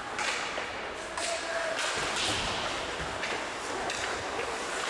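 Indistinct distant voices with several short scraping bursts and scattered knocks, as from a game going on.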